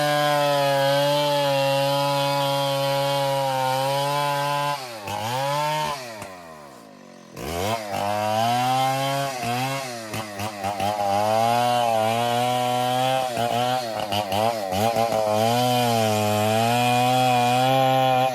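Two-stroke chainsaw running at high speed through ironwood. About five seconds in it drops toward idle for a couple of seconds, then revs back up, its pitch wavering as it works, before holding steady at full speed.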